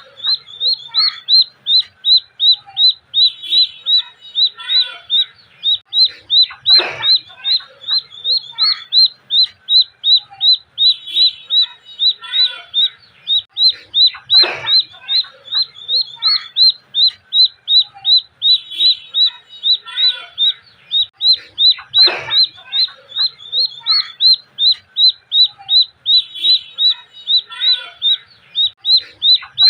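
Duckling peeping loudly and insistently: a steady run of short, high peeps, two to three a second, with a harsher, fuller call about every seven seconds. This is the distress cry of a baby duck.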